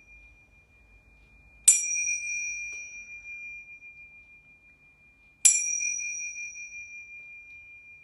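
Tingsha cymbals struck together twice, a little under two seconds in and again about four seconds later. Each strike gives a clear, high, long ring that fades slowly. The ring of an earlier strike is dying away at the start. These are the last two of three bells rung to settle and centre before the session begins.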